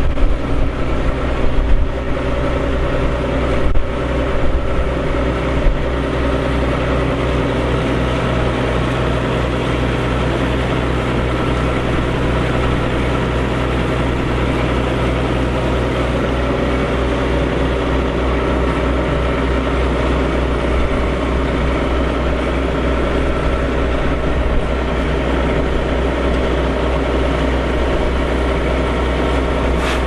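Diesel engine of a TerraGator 3244 slurry applicator idling steadily up close, with a few sharp knocks in the first several seconds.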